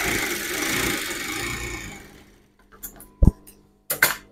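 Industrial lockstitch sewing machine running fast as it stitches cotton fabric, then slowing and stopping about two seconds in. A few sharp clicks and a knock follow as the work is handled.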